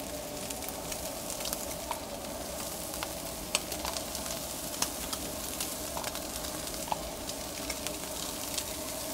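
Carne asada and cheese-topped corn tortillas sizzling on a Blackstone flat-top griddle: a steady frying hiss scattered with small pops and crackles, over a faint steady hum.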